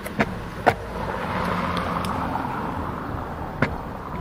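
A car passing on the street, its road noise swelling from about a second in and fading again near the end, with a few sharp clicks over it, the loudest near the start.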